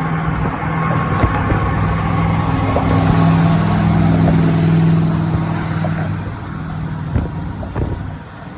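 Truck engine running with road noise while driving, growing louder a few seconds in and easing off near the end.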